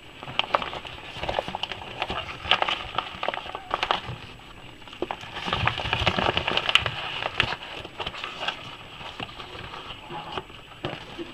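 Yellow padded mailer envelope being handled and opened by hand: a continuous crinkling and crackling of its paper and plastic, loudest around the middle.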